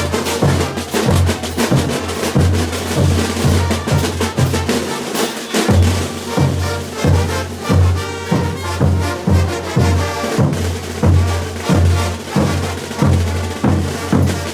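A brass band's percussion section playing a steady morenada beat on bass drum and snare drum.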